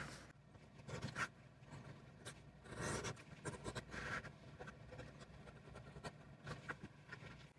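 Edge beveler shaving the edge of a leather strap: faint, short scraping strokes at an irregular pace, each peeling off a curl of leather.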